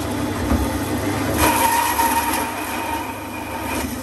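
Meat band saw running, its blade cutting through the bone of a cow's leg. A steady whine rises over the motor hum about a second and a half in, while the blade is in the bone, and falls away near the end.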